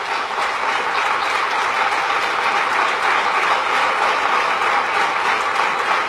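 An audience applauding: many hands clapping in a steady, even wash.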